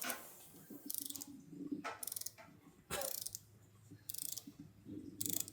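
Socket ratchet wrench ratcheting in about five short strokes, each a quick run of clicks from the pawl as the handle swings back.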